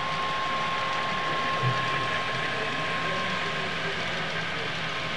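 Model train running on the layout: a steady mechanical whir of the locomotive's gearing and wheels on the track, with a thin steady whine.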